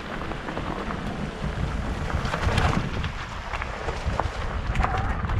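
Wind rumbling on the microphone of a handlebar camera, with a mountain bike's tyres crunching over loose rock and gravel, and scattered clicks and knocks from stones and the bike's rattle.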